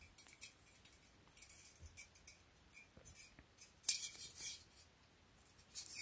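Thin perforated nickel plate strip clinking and scraping lightly as it is handled and flexed, with a louder rattle of the strip about four seconds in.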